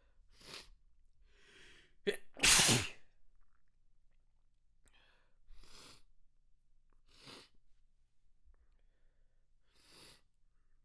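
A person sneezing once, loudly and sharply, about two and a half seconds in, after a short catch of breath. Several fainter, short breaths follow, spaced a second or two apart.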